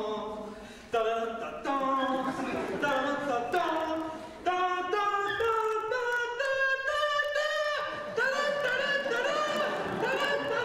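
Unaccompanied singing with no instruments: a melody of short held notes stepping up and down, with brief breaks about a second in and past the four-second mark.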